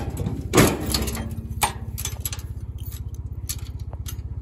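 A loud metal clank about half a second in, then lighter clicks, from the latch of a rusty steel tractor trailer's tailgate as it is fastened. Under it runs the steady pulsing idle of the tractor's diesel engine.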